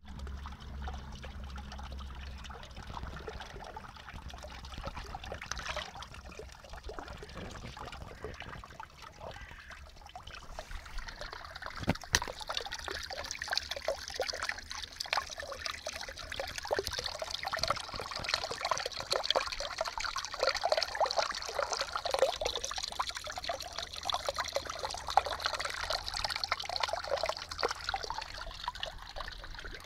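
Water from a coastal freshwater spring running and splashing over limestone rocks, a steady rushing with crackling splashes. It grows louder about twelve seconds in.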